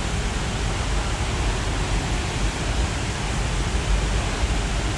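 Waterfall rushing: a steady, loud hiss of falling water with a low rumble underneath.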